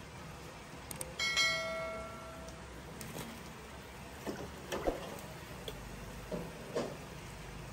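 A click, then a single bell ding about a second in that rings for over a second before fading: a subscribe-button notification sound effect. A few faint clicks and knocks follow.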